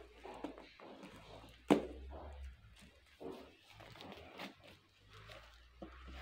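Ribbon and wrapping paper on a small gift box being handled while it is untied: light rustling and small clicks, with one sharp knock about a second and a half in.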